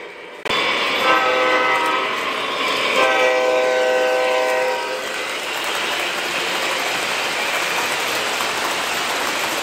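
Model Amtrak locomotive's sound system blowing its horn twice, a shorter blast about a second in and a longer one about three seconds in, over the running noise of the model train rolling fast along the track. After the horn the rolling noise carries on steadily.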